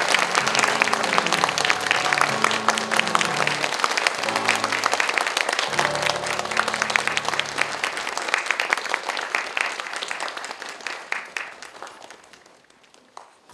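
Audience applause, dense clapping over background music. The music stops about eight seconds in, and the clapping thins out and dies away near the end.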